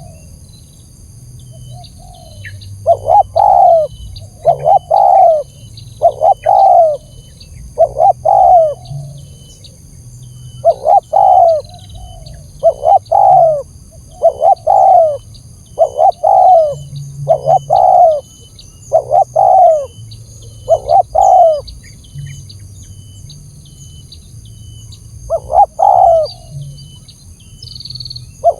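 Spotted dove (tekukur) cooing: a long series of short, loud coos, roughly one to two a second, breaking off for a few seconds and starting again near the end. It is a lure call (suara pikat) for drawing in wild spotted doves.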